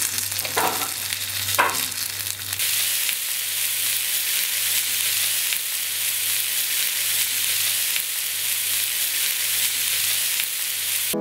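Meat frying on a hot grill plate: a steady, high sizzling hiss of spitting fat, with two short scraping strokes in the first two seconds.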